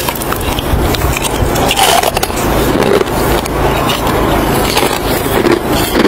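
Crunching of a mouthful of packed snow bitten off a snowball and chewed: a rough, crackly crunch with many small sharp cracks.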